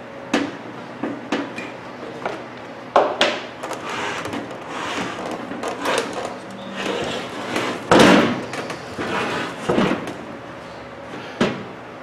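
Handling noises: irregular clicks, knocks and rustles as the opened microwave oven and its parts are handled, the loudest knock about eight seconds in.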